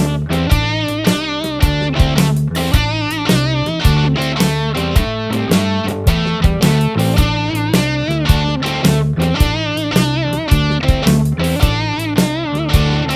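Background music: electric guitar over drums with a steady beat.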